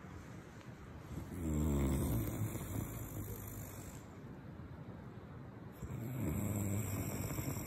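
A man snoring in his sleep: two long, rough snores, the first starting about a second and a half in and the second near the end.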